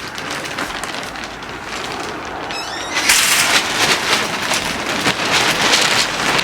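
Wind gusting and rustling across the microphone, growing louder about three seconds in, with a short bird chirp just before.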